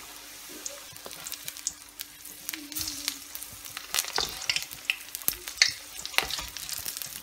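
Besan-battered cauliflower florets deep-frying in hot oil in a wok: a steady sizzle with frequent sharp crackles and pops. From about four seconds in, a spatula stirs and turns the pieces in the pan.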